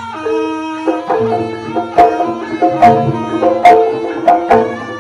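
Live jaranan gamelan music: sharp hand-drum (kendang) strokes over ringing, held notes of pitched metal percussion, the strikes coming more often in the second half.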